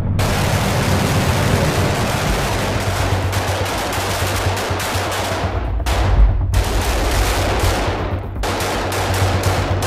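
Rapid rifle fire: many shots in fast, overlapping strings, with short breaks about six and eight and a half seconds in.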